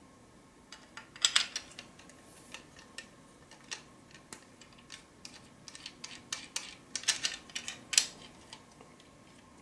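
Metal parts of a PanaVise circuit board holder clicking and clinking as they are handled and fitted together: irregular small knocks, louder about a second in and again between about seven and eight seconds in.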